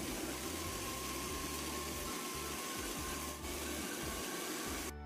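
Steamer pot of water boiling hard over high heat, giving a steady hiss that cuts off suddenly just before the end.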